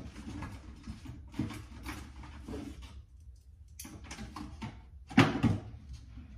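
Rummaging in a kitchen drawer for a spoon: irregular rattling and clattering, with a sharp knock a little after five seconds in.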